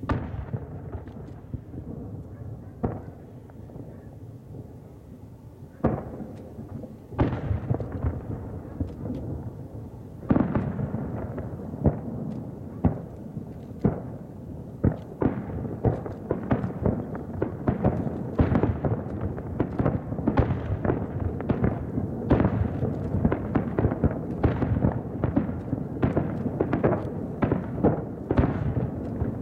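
Aerial firework shells bursting: a few scattered bangs at first, then from about ten seconds in a rapid, thickening barrage of reports that run together.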